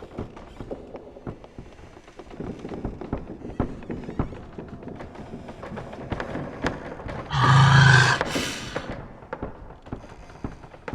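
Haunted-house sound-effect ambience: scattered knocks and thuds throughout, and one much louder sound about seven seconds in that lasts about a second and a half.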